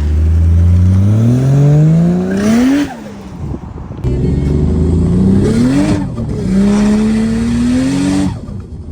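Ford Barra turbocharged 4.0-litre inline-six being driven hard: the revs climb steadily, then drop sharply as the throttle is lifted or a gear is changed. It pulls up again twice more, with a hiss near the top of each pull.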